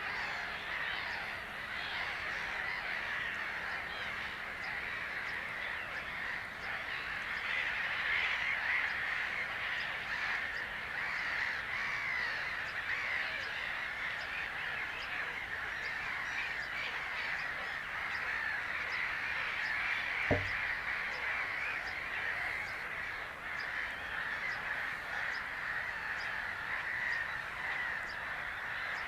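Dense outdoor chorus of many birds calling and chattering together without a break. A single dull thump comes about twenty seconds in.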